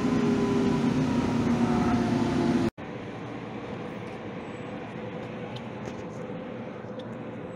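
A light rail train running, with a motor whine of several tones falling slightly in pitch. About two and a half seconds in it cuts off abruptly, giving way to a quieter steady hum with a few faint clicks.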